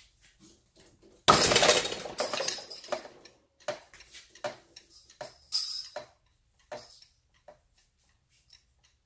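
An epoxy-bonded carbon fiber rod end pulling out under load at about 60 pounds: a sudden loud snap and clatter of the metal hook and parts about a second in, then scattered metal clinks and rattles.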